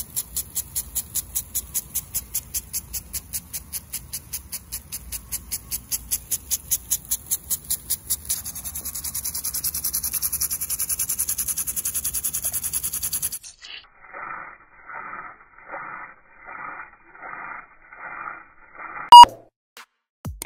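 Impact lawn sprinkler ticking steadily, about four ticks a second, with the hiss of the water spray; about 8 s in the ticks turn into a faster, denser rattle. The sound then cuts off sharply and is replaced by a short electronic beeping tune with one loud click near the end.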